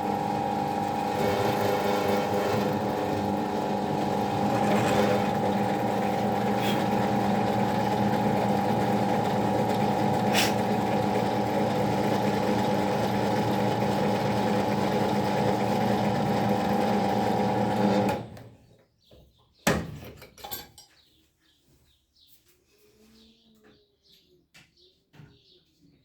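Electric workshop power tool running at a steady speed with a constant motor hum, switched off about eighteen seconds in. Shortly after, a single sharp knock.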